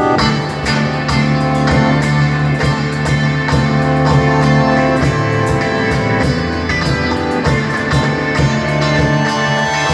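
A live band playing instrumental music: guitar over a steady drum beat.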